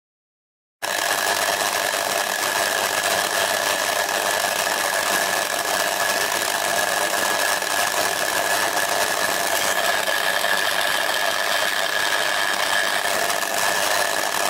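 Homemade argon ion drive running on 1 kilowatt of high-voltage DC: a loud, steady electrical buzz and hiss from the discharge and its power supply, with a constant high whine. It starts abruptly about a second in.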